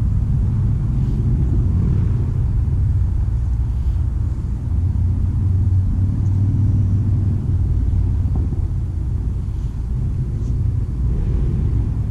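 A steady low rumble that wavers a little in strength, with a few faint ticks over it.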